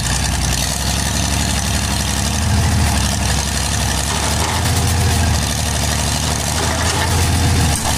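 Farm tractor's diesel engine working steadily under load as it tows a loaded truck out of mud, with a strong low drone and even firing beat. It eases off just before the end.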